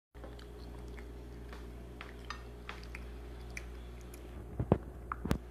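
Light clicks and clinks of cutlery against a plate, with a few louder knocks near the end, over a steady low hum.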